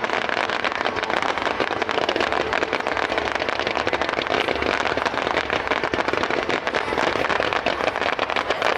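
Fireworks display going off, a dense, continuous crackle of many small pops and bangs.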